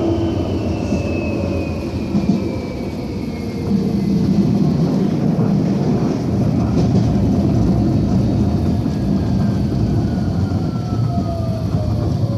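Nottingham Express Transit tram heard from inside while moving: a steady low rumble of wheels on rail, with the electric drive's whine gliding down in pitch. A long, slow downward glide in the second half comes as the tram slows for a stop.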